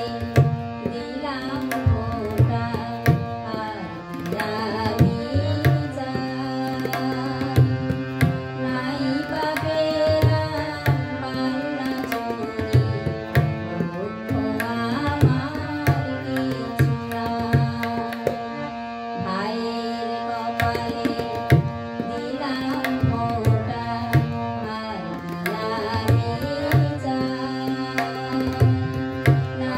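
A woman sings a Bengali song to her own harmonium, over a steady tabla rhythm. The harmonium's held notes and the melody run through, with the tabla strokes keeping an even beat.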